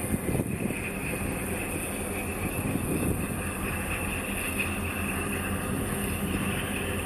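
Steady low engine drone of a large ship in a harbour, with a constant hum and a couple of brief louder swells near the start and about three seconds in.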